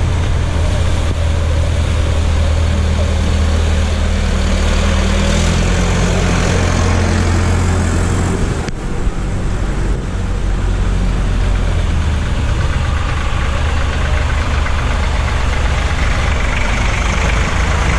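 Vintage tractor engines running at low speed as the tractors drive one after another through a shallow water ford, a steady low drone over the wash of water around the wheels. The engine note breaks off briefly about nine seconds in, then a closer tractor's engine carries on.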